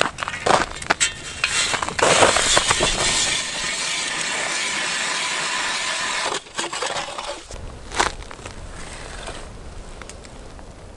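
Hand ice auger cutting into river ice: a steady crunching scrape for about four seconds that stops abruptly about six seconds in. Before it, crunching steps and knocks on the ice; after it, a few light knocks, one sharp near the end.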